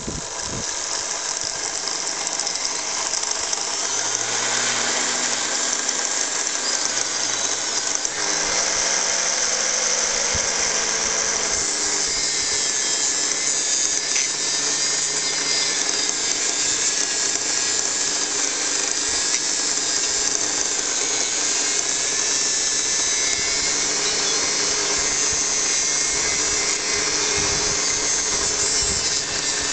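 Mini bench grinder running with a small buffing wheel while the brass top of a miner's lamp is held against it: a steady whir of motor and rubbing, the pitch wavering slightly as the part is pressed on.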